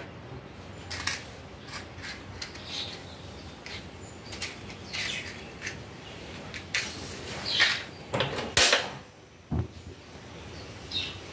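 Scattered clicks and scrapes, then a sharp click about eight and a half seconds in and a brief low thump as a single-burner gas stove lights.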